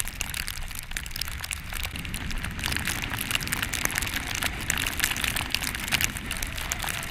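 Wind-driven snow pelting the camera in a blizzard: a dense, irregular patter of fine ticks over a steady hiss, with wind rumbling on the microphone.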